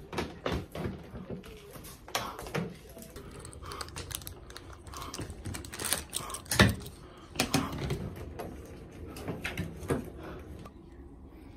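Irregular clicks, taps and knocks of a hard-shell suitcase and a wooden coat hanger being handled close by. The loudest knock comes a little past halfway.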